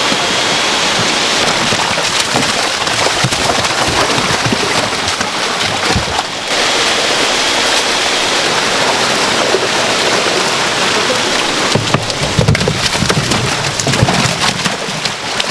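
Steady rush of water pouring and splashing into a salmon farm tank. Heavier, irregular splashing comes in the last few seconds as salmon thrash in a dip net.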